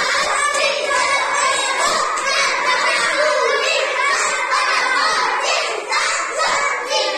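A classroom full of children talking and shouting at once, many overlapping voices in a steady hubbub.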